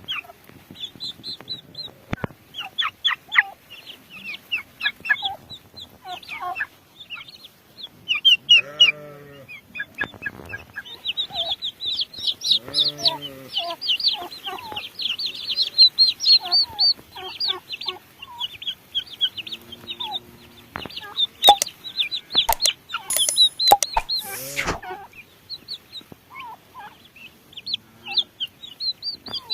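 Turkey poults peeping, a dense, continuous chorus of high-pitched chirps. A few lower, drawn-out clucking calls come through now and then, and there are some sharp clicks about two-thirds of the way in.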